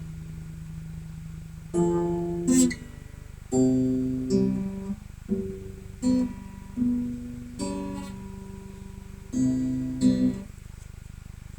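Acoustic guitar being played, a run of strummed chords and plucked notes that each ring and die away, over a low steady hum.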